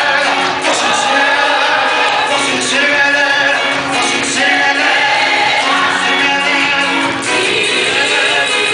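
Many voices singing a gospel hymn together, loud and unbroken.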